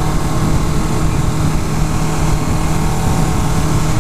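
2011 Kawasaki Ninja 650's 650 cc parallel-twin engine running at a steady pitch as the motorcycle is ridden along, with a steady rushing noise over it.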